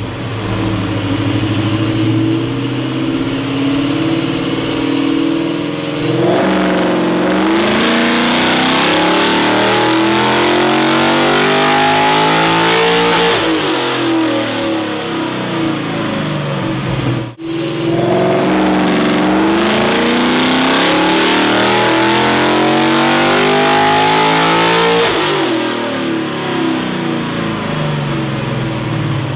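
V8 engine with open individual throttle bodies (bare velocity stacks) being revved in the bay. It idles, then climbs slowly in pitch over several seconds and falls back, twice, before settling back to idle.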